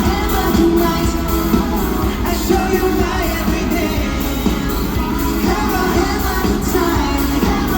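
Live pop-rock band playing amplified music with a sung lead vocal over it.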